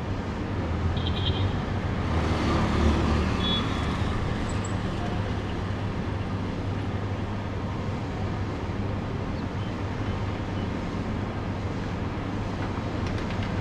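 Street traffic ambience: a steady low rumble of road traffic, swelling as a vehicle passes about two to three seconds in.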